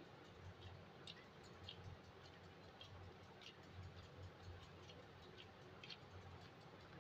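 Faint, irregular little sticky clicks of soft dough being squeezed and kneaded in rubber-gloved hands, over a low steady hum.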